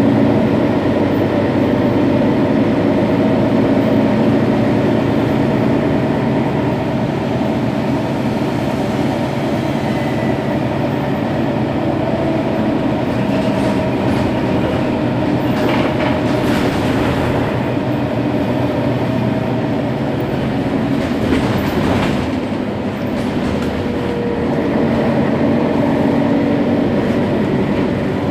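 Mercedes-Benz Citaro Facelift bus's OM 457 hLA straight-six diesel idling steadily while the bus stands still, with a few short rushes of noise around the middle.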